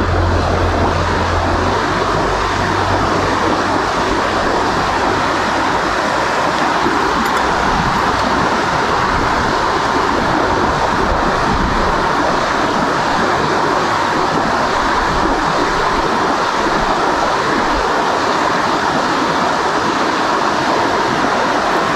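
Rushing water of a shallow, rocky trout brook running close by, a steady unbroken hiss of current. A low hum sits under it for the first two seconds.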